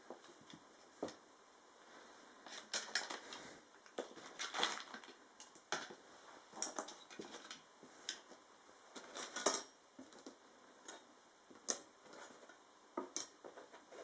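Hands handling and setting down the plastic parts of a liquid CPU cooler kit (fans, cables, mounting brackets): irregular clicks, clacks and brief rustles.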